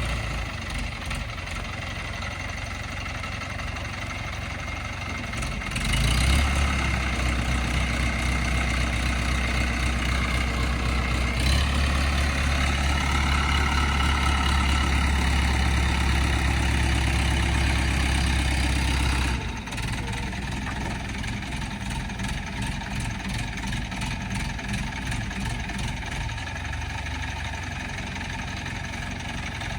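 Heavy vehicle engine running. It grows louder about six seconds in, rises in pitch as it revs around twelve seconds in, and drops back abruptly to a quieter drone about two-thirds of the way through.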